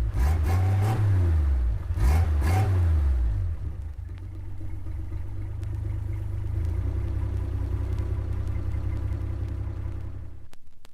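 Heavy engine from a 1958 stereo demonstration record's sound-effects suite. Its pitch sweeps up and down for about three seconds, then settles into a steady low drone that cuts off suddenly near the end.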